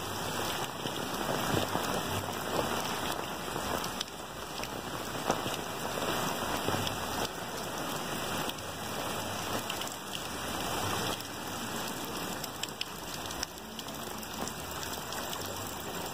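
Heavy rain falling onto a flooded street: a steady hiss of drops hitting standing water, with many small sharp ticks.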